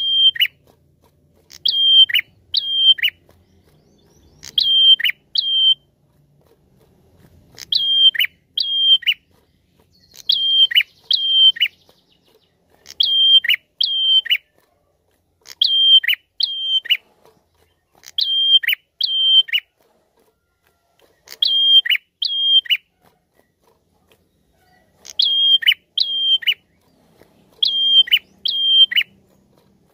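A caged prenjak calling loudly and over and over: pairs of sharp whistled notes, each holding one pitch briefly before dropping sharply, the pair repeated about every two and a half to three seconds.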